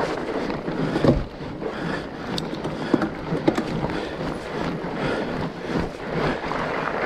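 Fat bike being ridden over a rough trail: a steady rush of tyres rolling, with the bike knocking and rattling over bumps, the heaviest thump about a second in.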